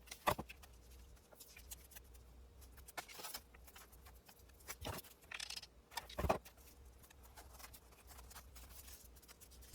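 Faint, scattered handling sounds of paper and ribbon being positioned on a journal: short taps and clicks with brief rustles, a few sharper ones about three, five and six seconds in.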